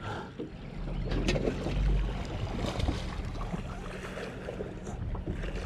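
Low, steady hum of an electric trolling motor on an aluminum bass boat, with wind on the microphone, a brief low rumble about two seconds in and a few faint ticks.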